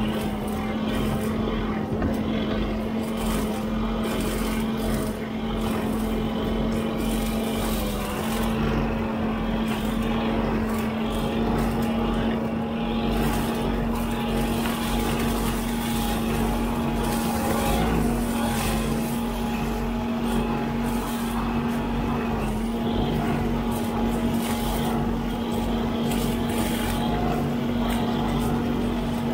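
Huddig 960C6 backhoe loader running steadily under load while its boom-mounted hydraulic brush cutter spins with a constant drone, chopping through roadside brush and saplings with irregular snapping and rustling.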